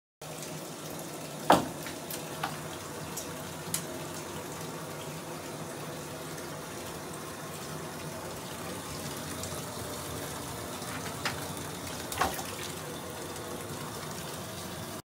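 A bathtub filling from the tap: a steady rush of running water, with a few sharp knocks, the loudest about a second and a half in.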